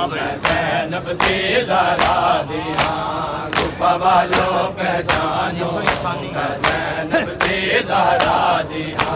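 Matam: a crowd of mourners slapping their chests in unison, sharp strikes about every two-thirds of a second, with men's voices chanting over them.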